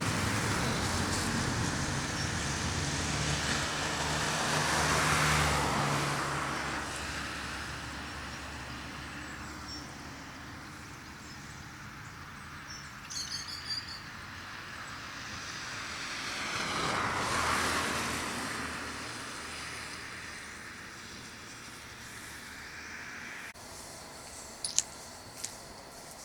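Road traffic: steady vehicle noise, with two cars passing, one about five seconds in and one about seventeen seconds in. The noise drops off suddenly near the end, followed by a few light clicks.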